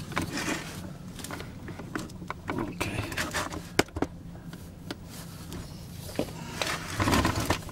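Irregular clicks, taps and short scrapes of hand work on a car's front suspension, metal parts and tools being handled, over a low steady hum. A louder rubbing sound comes near the end.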